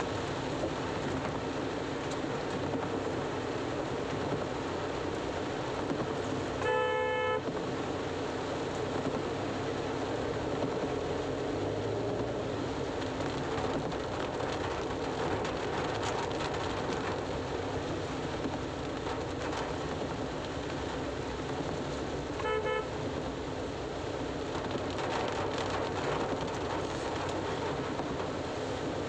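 Steady rain and road noise heard inside a moving car's cabin. A vehicle horn toots twice: once about seven seconds in and again, more briefly, about fifteen seconds later.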